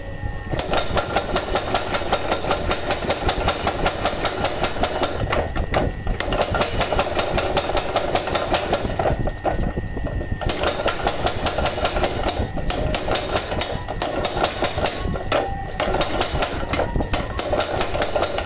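Homemade mechanical power hammer running, its ram striking in a rapid, steady rhythm of several blows a second under a motor drone. It stops and restarts briefly a few times.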